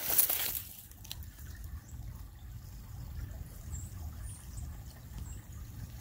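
Faint trickling of a small creek flowing through a log jam. It follows a brief rustle of dry grass underfoot in the first half-second.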